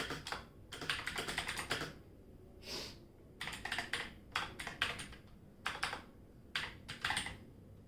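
Quantum QHM9800 mechanical gaming keyboard being typed on: quick runs of key clicks in short bursts, with brief pauses between them.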